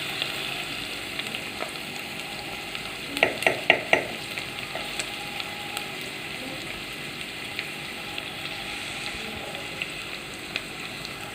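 Chopped onion and garlic sizzling as they sauté, being stirred, with a few sharp knocks of the spoon against the pan about three to four seconds in.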